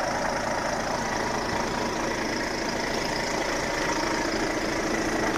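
Volvo FH semi-truck's diesel engine idling steadily.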